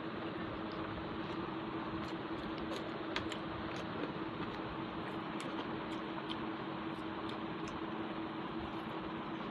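A steady background hum with one constant low tone, with faint, sparse clicks and smacks of rice and curry being mixed and eaten by hand.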